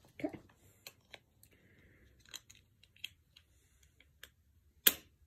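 Light clicks and taps of a plastic snap-on screen protector being handled and fitted onto an Apple Watch case, with one sharper, louder click near the end.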